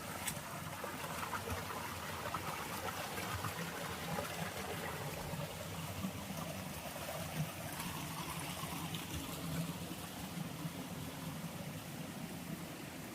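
Water of a small waterfall and stream running, a steady wash with no break, and a single sharp click just after the start.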